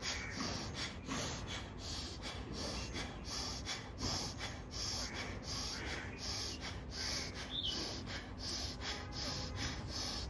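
A woman sitting in ice-cold water doing forceful bhastrika-style breathing: hard inhales and exhales in a quick, even rhythm.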